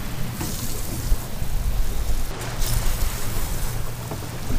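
Wind rumbling on the microphone over sea noise, with several short hissing bursts of water from a coiled washdown hose spraying the soaped cockpit deck.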